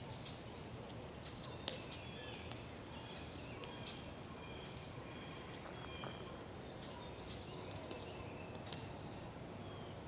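Songbirds chirping in short repeated notes over a steady background hiss, with a few sharp pops from a burning wood campfire.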